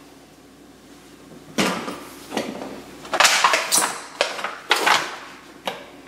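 Disposable aluminium foil roasting pan handled and slid across a wooden cutting board: after a quiet start, a run of sharp crinkling clatters and knocks, the busiest cluster a little past the middle.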